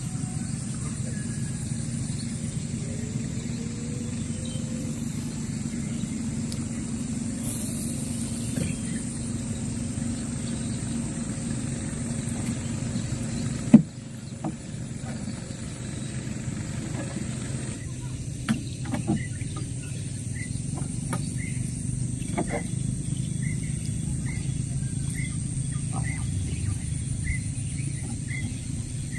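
A motor running steadily with a low hum. There is one sharp click about 14 seconds in. From about 18 seconds a bird repeats a short rising chirp roughly once a second.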